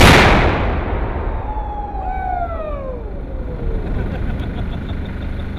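A 40 lb demolition charge (satchel charge) detonating: a sharp blast that dies away slowly into a long rolling rumble, with several thin falling whistles about two seconds in.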